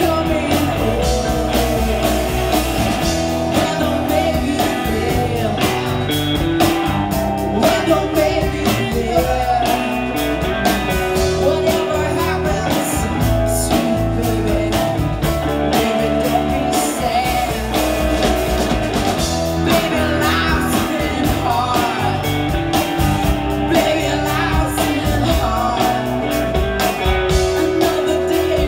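Live rock band playing a song: a woman singing over electric guitars and a drum kit with a steady beat.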